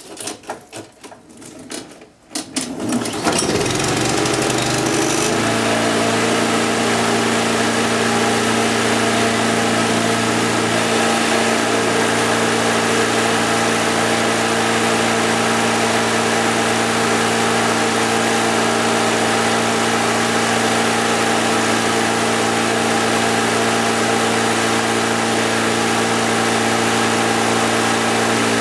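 Four-stroke petrol lawn mower engine starting: a few seconds of quick, uneven cranking strokes, then the engine catches about three seconds in. It revs up and by about five seconds settles into a steady run that carries on.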